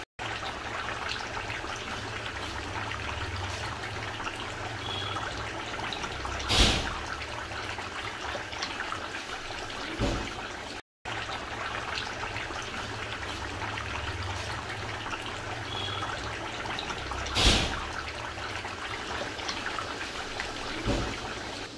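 Steady trickling, watery hiss over a low hum, broken by a brief louder sharp sound about six and a half seconds in and again about seventeen seconds in, with a momentary dropout near the middle.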